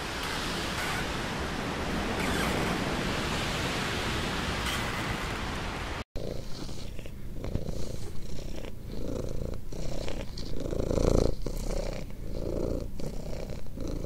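A steady rushing noise, then, after a sudden cut about six seconds in, a domestic cat purring in rhythmic swells of under a second each.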